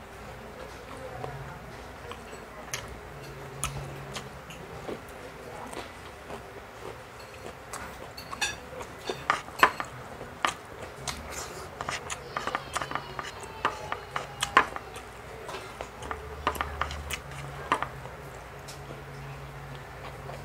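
Cutlery clicking and clinking against a plate while eating, in scattered taps that come most often in the middle stretch.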